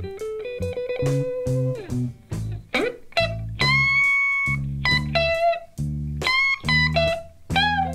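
1960s British blues record played from a vinyl LP: lead electric guitar with held notes and a string bend rising about three seconds in, over bass guitar and sharp rhythmic hits.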